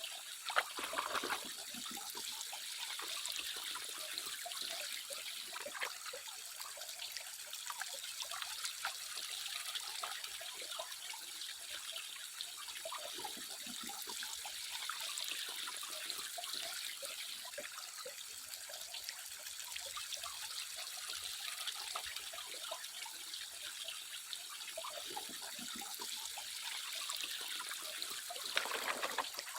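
Water running and trickling steadily, with a few sharper splashy sounds about a second in and again near the end.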